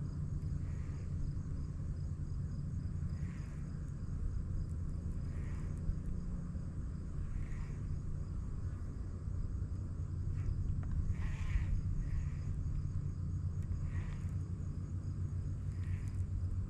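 Outdoor ambience: a steady low rumble, with faint high-pitched insect trilling and a soft chirp repeating about every two seconds.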